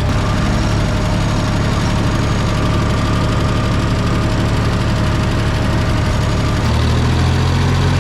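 Engine of a working machine running steadily, its low note shifting slightly near the end.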